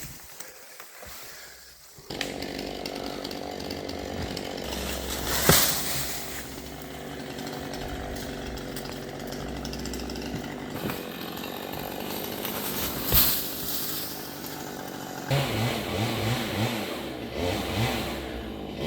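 Chainsaw starts running about two seconds in and holds a steady speed, with two sharp knocks along the way. Near the end it is revved up and down repeatedly.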